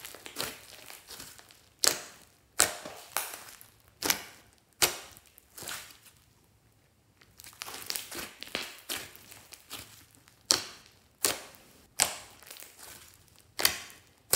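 Hands squishing and stretching a large mass of thick slime: trapped air bursts out in a string of sharp pops and crackles, roughly one a second, with a denser run of crackling about halfway through.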